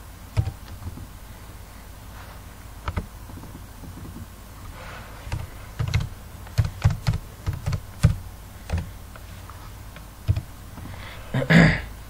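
Irregular keystrokes on a computer keyboard, quick and bunched together in the middle, as text is deleted and retyped. A louder, slightly longer burst comes near the end.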